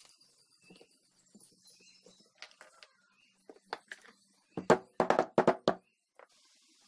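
Light clicks and taps of metal parts being handled, then a quick run of louder sharp knocks about five seconds in as a rubber oil seal is pressed by hand into a motorcycle drum-brake backing plate resting on the bench.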